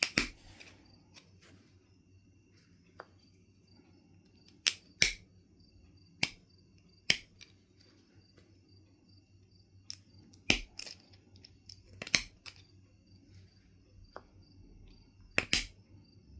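Knife River Flint being knapped: sharp clicking strikes as flakes come off the stone. There are about eight loud clicks at uneven intervals, with fainter ticks between them.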